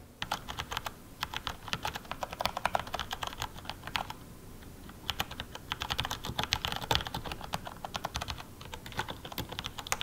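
Typing on a Corsair mechanical keyboard with Cherry MX Brown switches: quick, dense runs of soft key clacks, tactile but not clicky, with a short lull about halfway through.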